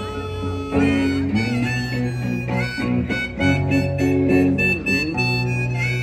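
Harmonica solo played from a neck rack over a strummed hollow-body electric guitar, the harmonica notes bending and sliding, with a long held high note near the end.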